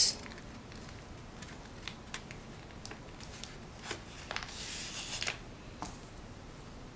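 Quiet paper handling: scattered light taps and clicks as a glitter cardstock strip is pressed onto a folded paper bag, with a brief rustle of rubbing about four and a half seconds in.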